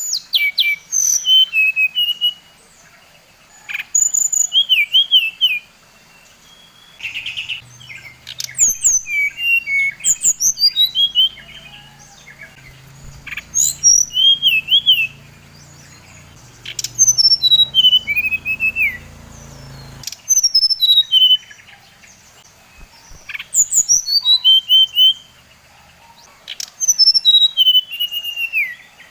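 Brown-chested jungle flycatcher (SRDC) singing: repeated phrases of quick, clear whistled notes, many sliding downward, each phrase about two seconds long with short pauses between. This is the kind of song used as a lure to rouse other SRDCs.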